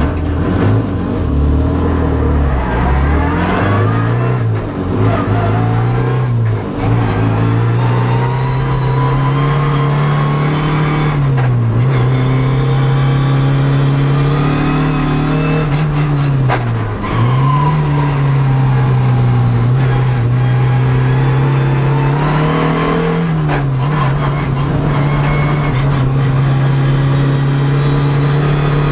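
Toyota MR2 AW11 rallycross car's engine driven hard on track, heard from inside the cockpit. The engine note climbs under acceleration and drops sharply four times as the driver lifts or shifts, then holds fairly steady through the second half.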